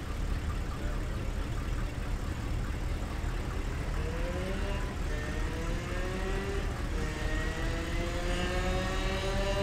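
Low, steady V8 engine rumble of a late-1960s Lincoln Continental convertible rolling slowly past. From about four seconds in, a higher pitched tone joins and rises gradually in several steps.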